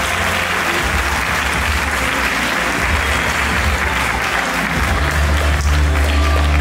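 Audience applauding over the performance music, whose low bass notes grow stronger near the end.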